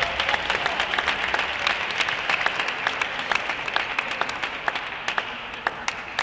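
Audience applauding, many hands clapping at once, fading away near the end.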